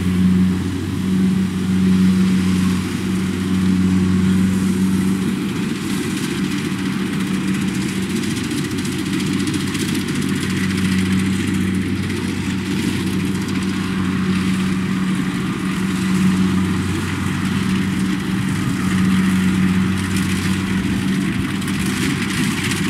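Kubota DC70 rice combine harvester's diesel engine and machinery running steadily, a constant low drone with a mechanical clatter over it.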